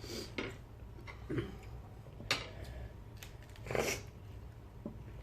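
Eating sounds at a meal: scattered soft mouth clicks and smacks while chewing, with one louder breathy sound about four seconds in.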